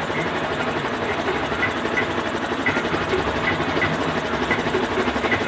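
Single-cylinder motorcycle engine idling steadily at about 1400 rpm with no throttle, a fast even chugging.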